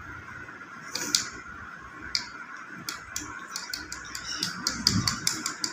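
Coloured pencil scratching on paper in quick back-and-forth shading strokes, coming faster and more densely near the end, over a steady background hum.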